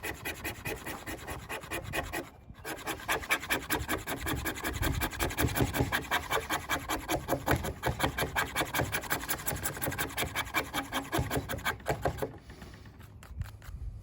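The back of a Swiss Army knife's saw blade scraping fatwood into fine scrapings, in rapid, even strokes of about four a second. There is a brief pause about two seconds in, and the scraping stops near the end.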